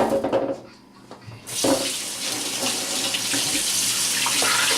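Kitchen sink faucet turned on about a second and a half in, water running steadily into the sink. A short loud sound comes at the very start, before the water.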